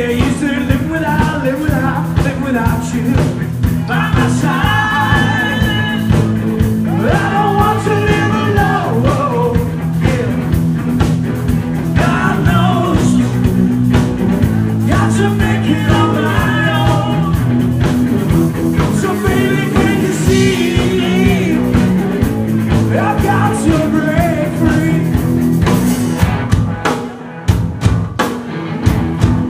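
Live rock band playing: drums, bass and guitar under a lead line that bends in phrases every few seconds. Near the end the full band drops out suddenly to a thinner, quieter passage.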